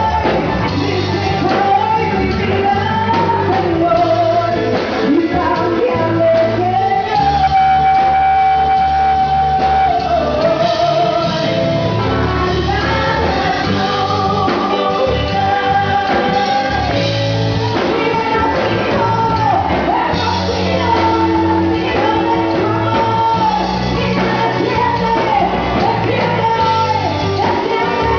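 Live worship song sung by a lead singer over a full band, with one long held note about seven seconds in.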